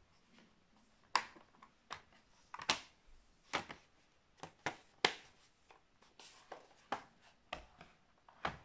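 Lenovo IdeaPad 3 laptop's bottom cover being pressed back into place and the laptop handled and turned over: a dozen or so short, sharp clicks and knocks at irregular intervals.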